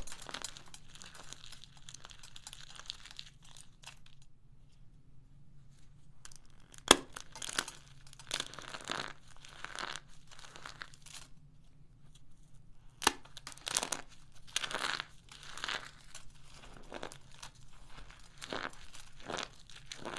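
Crumbly white powder chunks being crushed and squeezed in the hands: a run of irregular crunches and crumbling, with a sharp snap at the start and another about seven seconds in, and two short lulls.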